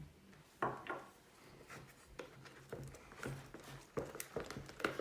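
Light, irregular taps and knocks of slime-making containers and utensils being handled on a tabletop, over a faint steady hum.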